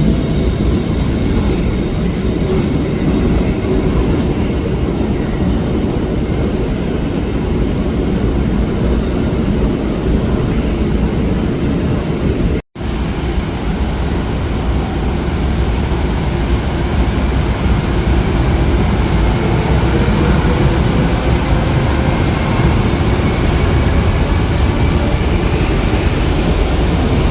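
Train running through a station with a steady low rumble, cutting out for an instant about halfway and carrying on.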